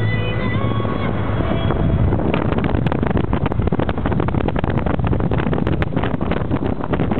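Car interior on the move: road and engine rumble with wind buffeting the microphone in rapid gusts, from about two seconds in. Music plays at first and is drowned out.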